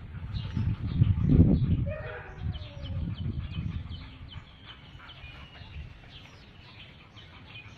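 Birds chirping in the background, with a loud low rumble about a second in.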